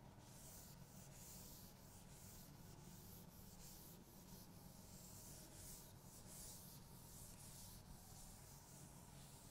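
Faint swishing of a duster wiped back and forth across a chalkboard, in quick repeated strokes, over a steady low room hum.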